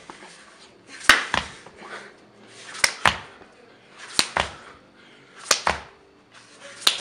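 A person exercising on the floor in quick repeated reps, five in all: each a rushing whoosh that ends in a sharp slap, often a double slap, as the body drops and lands.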